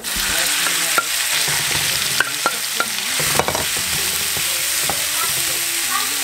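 Thin-sliced raw beef dropped into hot oil and browned garlic in a frying pan, setting off a loud sizzle that starts suddenly and carries on steadily, with a few light clicks in the first few seconds.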